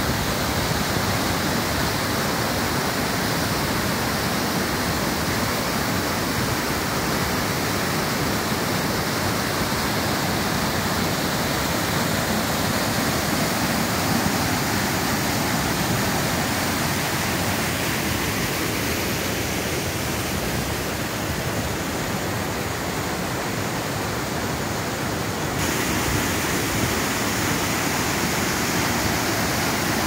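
A tall mountain waterfall rushing down rocky cascades: a steady, loud noise of falling water.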